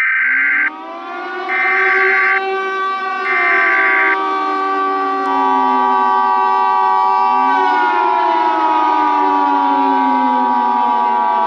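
Emergency Alert System activation tones: three short bursts of SAME header data, then the steady two-tone EAS attention signal from about five seconds in. Behind them, several sirens rise and fall slowly in pitch.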